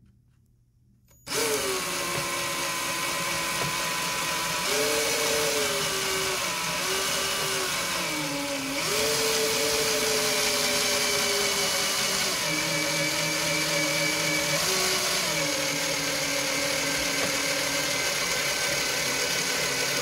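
Electric drill with a 1-1/4-inch hole saw cutting through a plastic dash panel. It starts about a second in and runs continuously, its motor pitch dipping and recovering several times under load. It is a poor hole saw, which by the owner's account burned through the plastic more than it cut.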